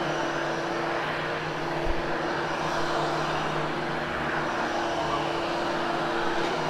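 Hoover HushTone upright vacuum cleaner running steadily, with a continuous motor hum and airflow hiss as it is pushed over carpet; a low thump about two seconds in.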